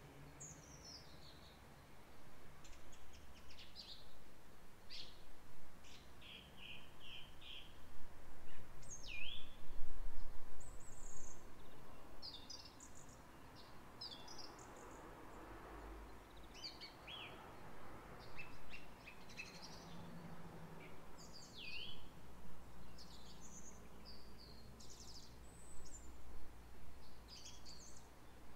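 Several garden songbirds chirping and singing in short quick notes and brief trills, some falling and some rising. Underneath, a low rumble of wind on the microphone swells into a gust about eight to eleven seconds in.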